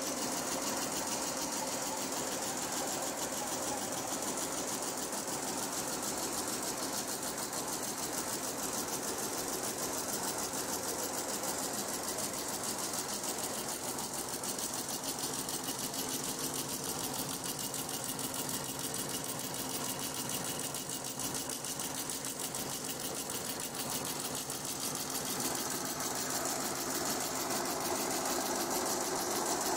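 Multi-head ShengMing sequin embroidery machine running, its needle heads stitching in a fast, even clatter that never lets up.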